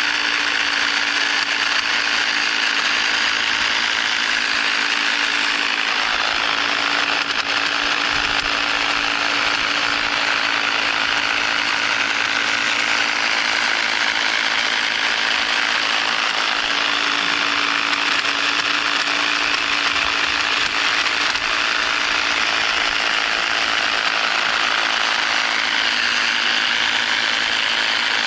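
EGO battery pole hedge trimmer attachment running at a steady speed, its reciprocating blades and gearbox chattering with a steady hum, as it trims burning bushes.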